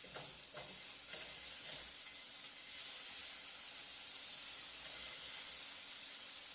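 Chicken sizzling steadily on a hot grill pan, with a few light knocks in the first second or so as the pieces are flipped.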